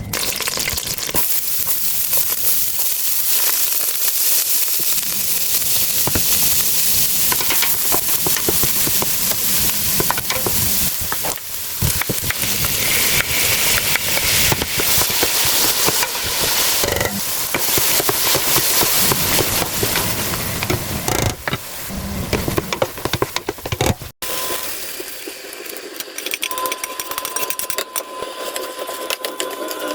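Food sizzling as it fries in a hot pan, with short scrapes of stirring. The sizzle cuts off abruptly about 24 seconds in, giving way to quieter clicks and a faint steady whine.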